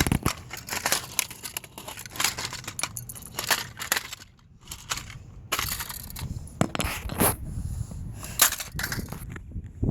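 Hard plastic body of a toy remote-control car being smashed and broken apart: a run of irregular cracks, snaps and knocks, with a short pause about halfway through.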